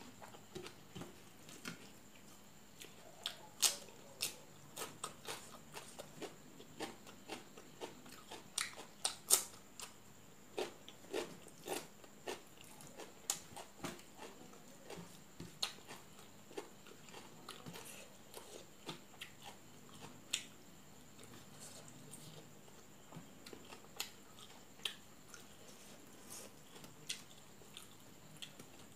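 Close-miked eating by hand: wet chewing and mouth clicks, with fingers working rice and fish curry on a steel plate. It comes as a string of irregular sharp clicks, busiest in the first half and sparser later.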